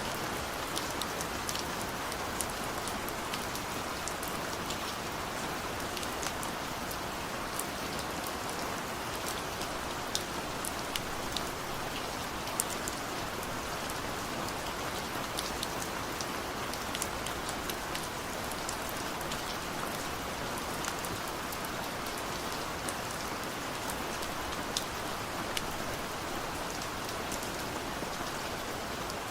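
Steady rain falling, a constant hiss with many sharp little drop ticks scattered through it.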